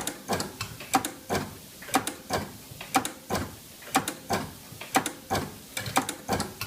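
GPO electric clock system ticking and clicking: master clock, relays and slave clock movements stepping, a steady train of sharp mechanical clicks at about two a second.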